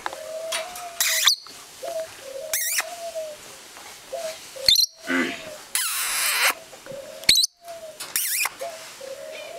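Peach-faced lovebirds giving about six short, harsh, high screeches and chirps, the loudest near the middle. Under them, ring-necked turtle doves coo in long, low, gently rising and falling notes.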